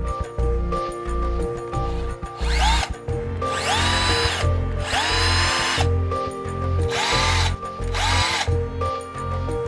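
Parkside PAAP 12 A1 cordless 12 V polisher's motor triggered in five short bursts, running free with no pad on the spindle. Each burst spins up with a rising whine, holds for under a second and winds down.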